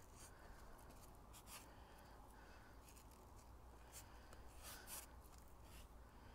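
Faint scraping and rubbing of a brush spreading silica-thickened epoxy over plywood, a few soft strokes.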